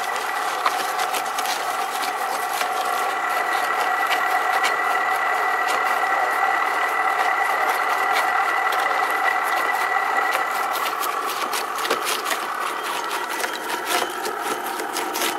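Homemade belt-driven charcoal grinder running with a steady whine, while lumps of charcoal being fed through it crackle and click, the clicks growing thicker near the end.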